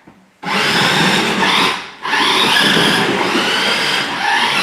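1:10 scale Ford GT RC car's electric motor and gears whining under throttle, starting about half a second in. It cuts out briefly near two seconds, then runs again with its pitch rising and falling.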